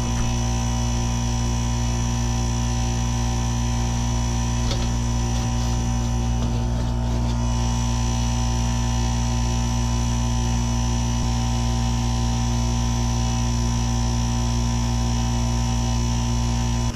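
Geothermal heat pump running with a loud, steady electrical hum and low mechanical drone, with a few faint clicks of handling near the middle.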